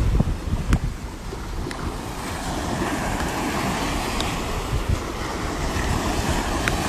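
Strong wind buffeting the microphone in gusts, over a steady wash of surf.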